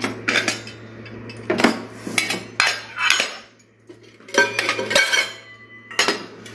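Steel kitchen utensils and containers clattering and clinking as they are handled and set down. The clatters come in several clusters, with a brief metallic ring after some strokes and a short lull in the middle.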